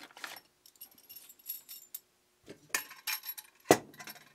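Small metal conduit connectors clinking together and a plastic parts bag crinkling as one is picked out, then a sharp metallic click as the connector meets the steel electrical box about three-quarters of the way through.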